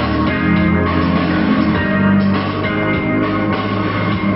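Background rock music with drums, bass and guitar and a steady beat.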